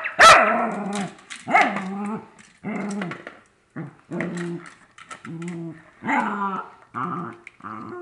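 Dog barking once sharply just after the start, then giving a run of short growling grumbles, roughly one a second, as it noses at a toy bird; the sounds of a dog frustrated with a fake bird.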